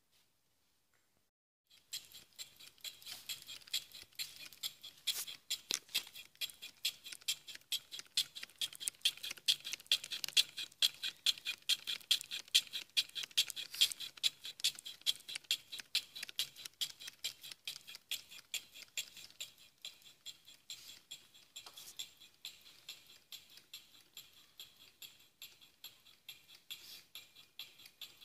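Cutting tool being stroked again and again through a gear blank held in a lathe chuck, hand-shaping (broaching) the gear teeth: a fast, regular run of sharp scraping clicks. It starts about two seconds in and is loudest in the middle.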